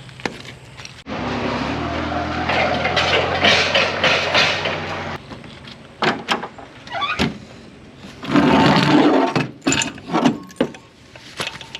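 A motor running steadily for about four seconds, starting and stopping abruptly, followed by scattered knocks and clanks.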